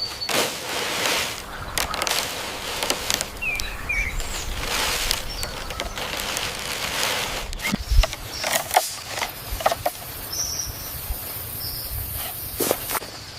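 Outdoor ambience of rough rustling noise with scattered clicks and knocks, and a few short bird chirps, twice in the first half and once more later.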